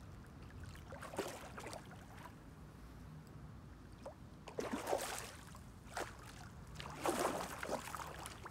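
A hooked carp splashing and thrashing at the surface close to the bank as it is played in, in several separate bursts, the loudest about five and seven seconds in. The fish is still fighting, shy of the landing net.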